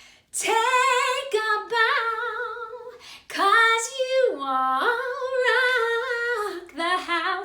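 A woman singing a children's song in long held notes with vibrato, dropping briefly to a lower note about halfway through.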